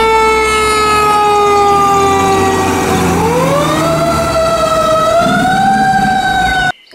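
Fire truck siren wailing over a low engine rumble. Its pitch slowly falls, climbs again about three seconds in, rises once more later, and then cuts off suddenly near the end.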